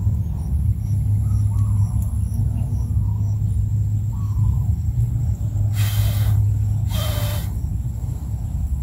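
Steady low rumble of wind buffeting the microphone, with two short hissing rustles about six and seven seconds in.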